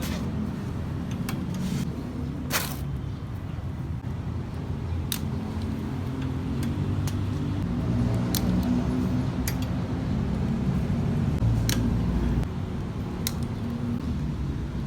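Steady low rumble of vehicle traffic that swells a little past the middle, with several sharp metallic clicks, like tools or small metal parts being handled.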